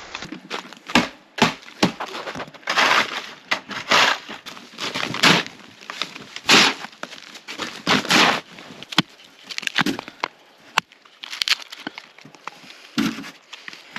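Footsteps crunching through snow, one heavy crunch every second or so.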